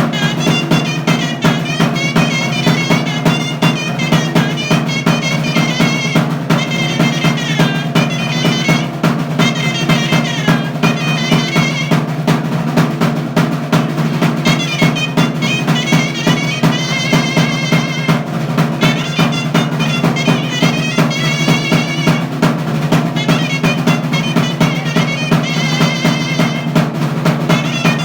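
Chirimía, a wooden double-reed shawm, playing a quick, ornamented melody in phrases with short breaks, over constant rapid drumming.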